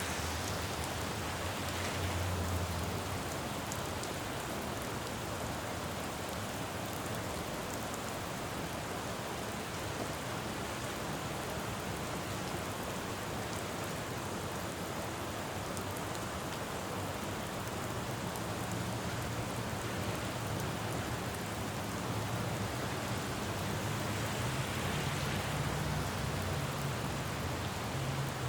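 Steady rain falling on a city road, an even hiss, with the low hum of traffic rising in the second half and a car's tyres swishing past on the wet road near the end.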